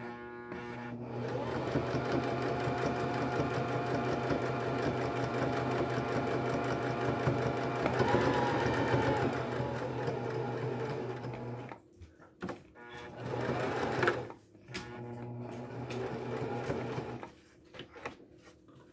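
Electric domestic sewing machine stitching through denim: it runs steadily, speeds up briefly, then stops about halfway through. It gives one short burst and runs again for a few seconds before stopping near the end.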